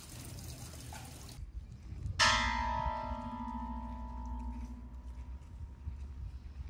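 A bell struck once about two seconds in, ringing with several tones and a slightly pulsing low note that fade away over about three seconds.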